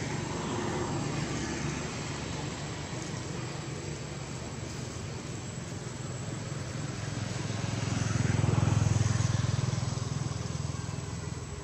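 A motor vehicle engine passing, a low rumble that builds to its loudest about eight to nine seconds in and then fades.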